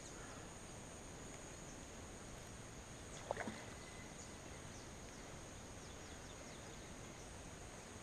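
Faint outdoor background noise with a steady high-pitched hum, broken once about three seconds in by a short chirp-like squeak.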